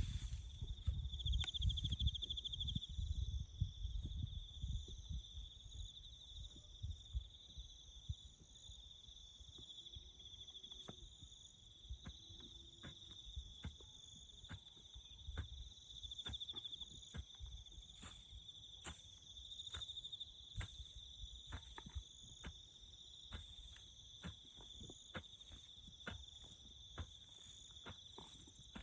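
Crickets chirping in a steady, high, continuous chorus. Irregular short knocks and clicks run over it, with heavier low thuds in the first few seconds.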